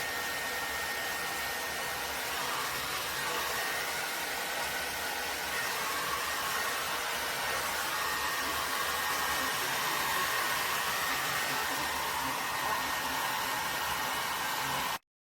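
Bellissima Diffon hair dryer blowing steadily, a rushing airflow with a faint high whine, cutting off suddenly near the end.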